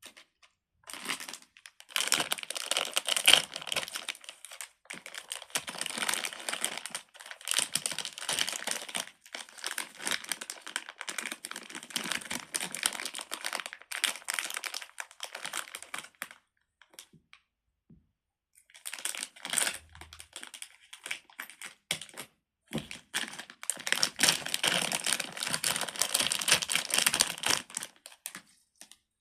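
Crinkling, crackling handling noise from a fidget toy being squeezed and turned in the hands. It comes in two long stretches with a pause of a few seconds in the middle.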